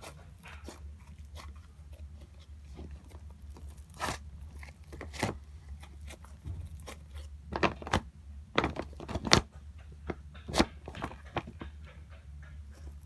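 Slime made from Model Magic clay being squeezed and pulled by hand: irregular crackles and sticky pops, with a cluster of louder pops about two-thirds of the way through, over a low steady hum.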